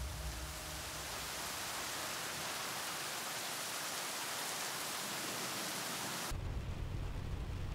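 Steady heavy rain, an even hiss. About six seconds in, the sound turns muffled, the high hiss falling away, and a low rumble comes in.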